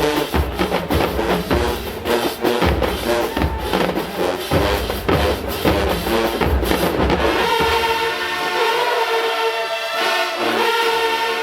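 Marching band playing, with bass drums and snares pounding out a steady beat under the horns. About seven and a half seconds in, the drums drop out and the brass holds long chords.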